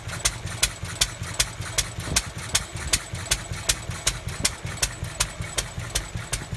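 Lister D single-cylinder stationary engine running steadily, its exhaust beating in an even rhythm of a little under three strong beats a second over a low hum.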